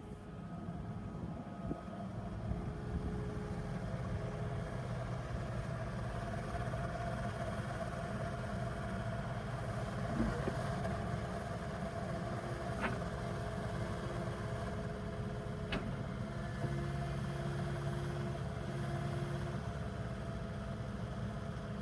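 Kubota KX080 excavator's diesel engine running steadily, with two brief sharp clicks about two thirds of the way through.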